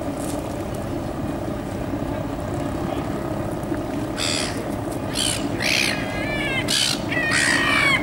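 Black-headed gulls calling: harsh, wavering calls starting about halfway in and coming more often near the end, over a steady low rumble.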